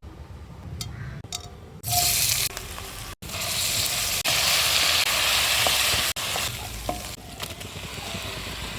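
Chicken keema (minced chicken) sizzling as it fries in a pan while being stirred. It starts quieter with a couple of clicks, then breaks into a loud sizzle about two seconds in, loudest in the middle, and eases somewhat after about six seconds.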